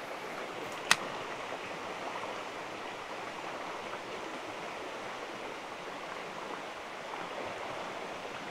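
Steady rush of a rocky river's current, with one sharp click about a second in.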